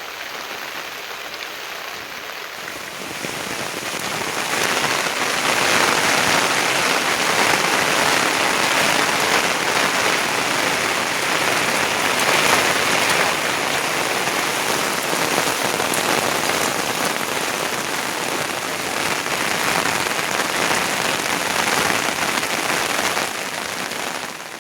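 Steady rain falling hard, building in strength over the first few seconds and then holding at a constant level.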